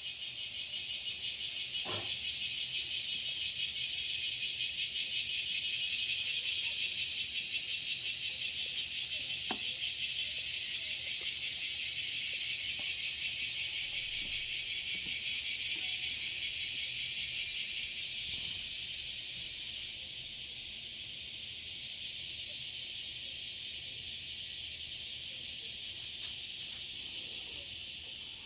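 Cicadas singing: a loud, shrill, dense drone pulsing rapidly, easing slightly toward the end.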